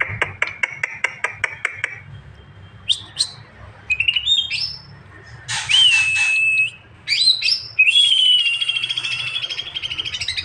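A cucak ijo (green leafbird) singing. It opens with a quick run of sharp chips, about six a second, then gives varied whistled and gliding phrases, and ends on a long rapid trill.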